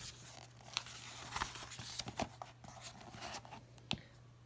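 Faint paper rustling with a few light clicks and ticks: the pages of a picture book being handled and turned.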